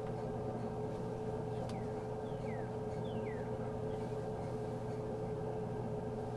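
A steady mechanical hum with one constant tone, and three short falling chirps about two to three and a half seconds in.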